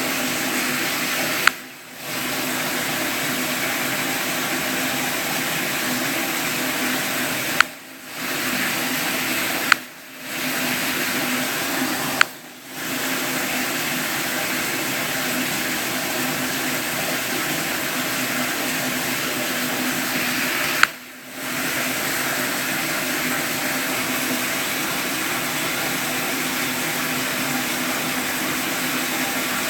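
Steady rushing of running water with a faint low hum, broken five times by a sharp click, each followed by a brief dip in the rushing sound.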